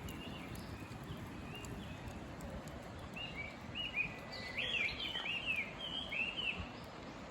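Wild birds singing: a run of short, repeated chirping phrases that grows busiest toward the middle, over a steady low background noise.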